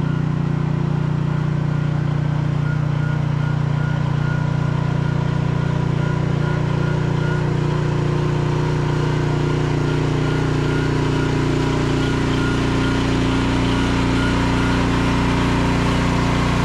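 Briggs & Stratton engine of an AGT Industrial L12 micro excavator running steadily at a constant pitch while the machine travels on its rubber tracks at full travel speed.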